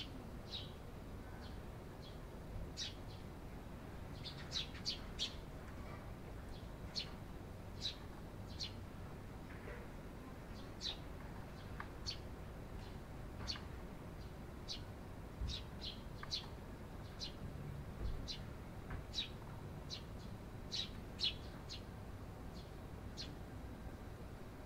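Eurasian tree sparrow chirps: short, sharp chirps, irregularly spaced, about one or two a second, some coming in quick pairs or runs of three.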